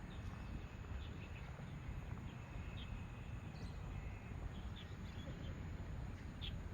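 Outdoor ambience: a steady low rumble of wind on the microphone, with faint short bird chirps scattered through it.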